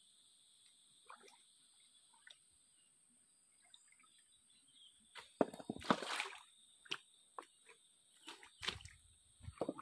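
Water splashing and sloshing in a shallow rocky stream as hands grope under the stones for crabs, in several short bursts from about halfway in. A steady high insect drone runs underneath.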